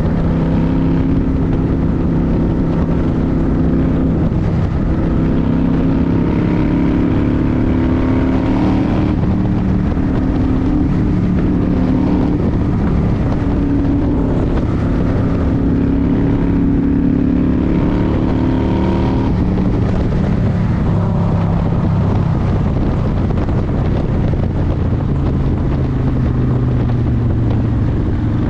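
Motorcycle engine running under way with rushing wind noise, its pitch rising and falling every few seconds as engine speed changes.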